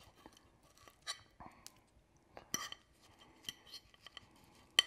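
Metal fork clinking against a dinner plate while cutting into a piece of roast potato: several sharp, ringing clinks, the loudest just before the end.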